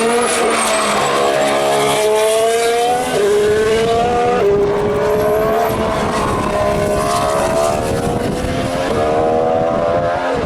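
2014 Formula One car's 1.6-litre turbocharged V6 hybrid engine at high revs on track, its pitch climbing and then dropping at gear upshifts about three and four and a half seconds in.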